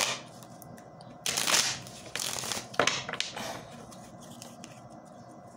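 Tarot cards being shuffled and handled: several short bursts of rustling in the first three and a half seconds, the loudest about a second and a half in.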